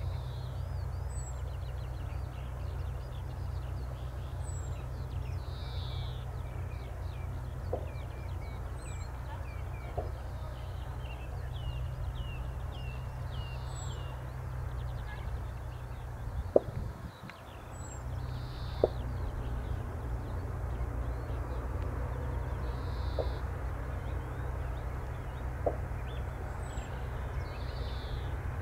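Small birds singing and chirping, with short song phrases repeating every few seconds over a steady low rumble. There are a few faint clicks, the strongest about two-thirds of the way through.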